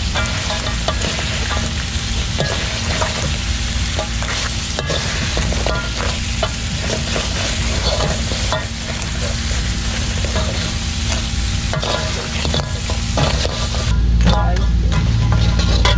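Blue swimmer crabs sizzling as they fry in chili paste in a metal wok, with a metal spatula stirring and scraping them in frequent clicks and knocks against the pan. A low rumble comes in near the end.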